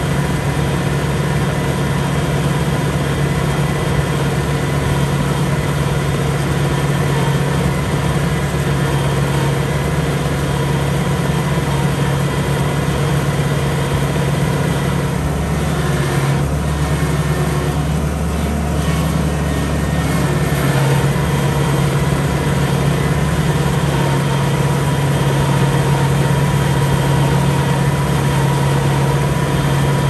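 A rice combine harvester's engine running steadily, a loud even drone. For a few seconds just past the middle its low hum shifts, then settles back.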